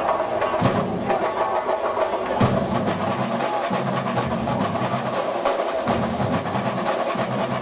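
A samba school bateria playing together: massed surdo bass drums beating a steady low pulse under a dense, continuous layer of snare drums and other small percussion.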